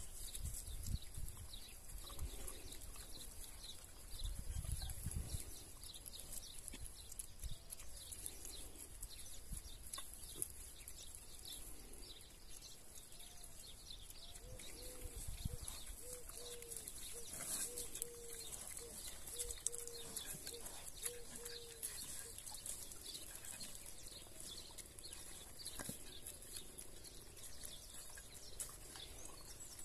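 Kune Kune piglets rooting and grazing in grass, with soft animal sounds, under a steady background of bird chirps. Midway there is a run of about ten short, evenly spaced low calls.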